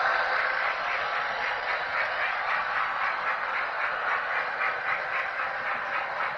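Model trains running on the layout's track: a steady rattling run of wheels and motors, with a quick, even clicking of wheels over the rail joints.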